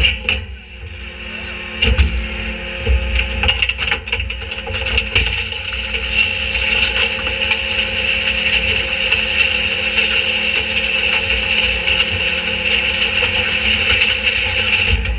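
Leach rear-loader packer blade crushing wooden furniture and cardboard in the hopper. Wood cracks and splinters over the first few seconds, then a steady high whine of the hydraulics runs over the low rumble of the truck's diesel engine as the blade cycles.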